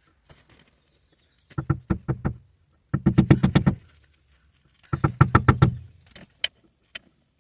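Hand socket ratchet clicking on its back-strokes: three runs of quick, even clicks with short pauses between, as a bolt is turned.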